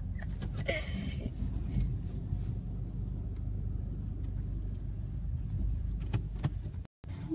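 Steady low rumble of a car's engine and tyres heard from inside the cabin while driving, with a few light clicks near the end and a brief dropout in the sound just before the end.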